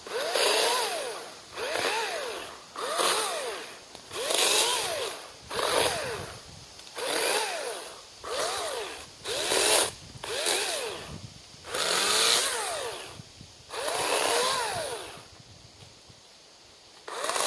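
Greenworks 80-volt battery chainsaw revved in about a dozen short bursts. Each time, the motor's whine climbs and then falls back as the trigger is squeezed and let go, with a longer pause shortly before the last burst.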